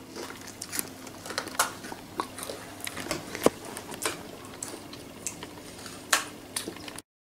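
Scattered light taps and clicks, one a little louder about three and a half seconds in, over a faint steady hum.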